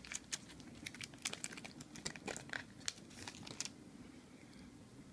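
Foil booster-pack wrapper crinkling while the cards are slid out of it: a run of scattered sharp crackles that die away about three and a half seconds in.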